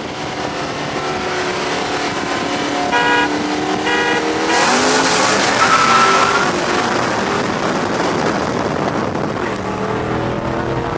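Cars' engines revving and accelerating hard in a street drag race, their pitch gliding up. About four and a half seconds in comes a loud rush of noise with a rising squeal lasting about two seconds.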